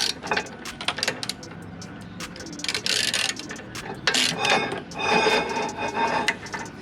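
Metallic clicking and clatter from hand tools and brake parts being worked on, in irregular runs of sharp clicks with a few short scraping, rattling bursts.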